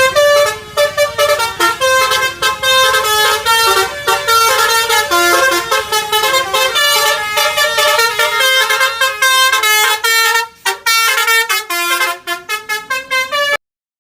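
Bus telolet horn, a multi-tone musical horn, playing a fast melody of short, quickly changing notes. There is a brief break about ten and a half seconds in, and the sound cuts off suddenly near the end.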